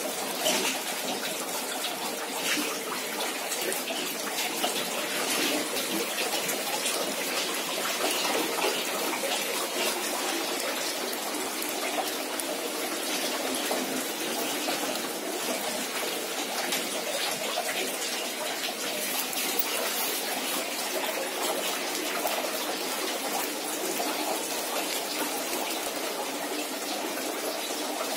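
Water running steadily, a continuous rushing with small splashes and no breaks.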